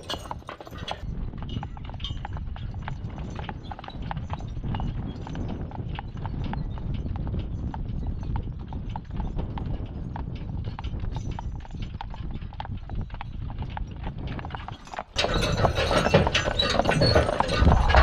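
Hooves of a team of two draft horses clip-clopping at a walk on a paved road, over a steady low rumble. About fifteen seconds in, the sound turns abruptly louder and harsher.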